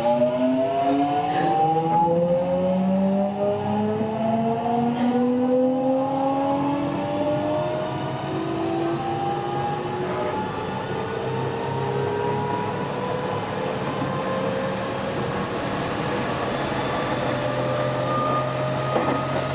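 Toshiba GTO-thyristor VVVF inverter and traction motors of a JR West 207 series 1000 subseries EMU (KuMoHa 207-1037) whining as the train accelerates: a stack of tones glides steadily upward in pitch over a steady low hum. This car's inverter modulation sound is abnormally odd compared with others of the type.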